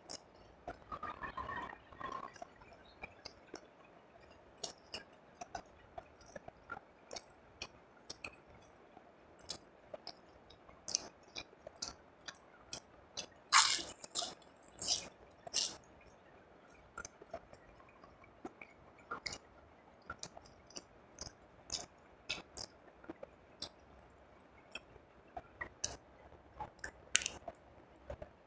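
Close-miked chewing, with wet clicks and smacks of the mouth, from someone eating fried rice and grilled fish. The clicks come scattered through, with a louder cluster about halfway through.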